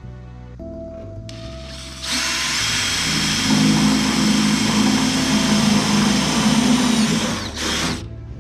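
Power drill-driver running in one steady burst of about six seconds, with a low motor whine, stopping abruptly: it is tightening the lock nuts on a bracket's bolts.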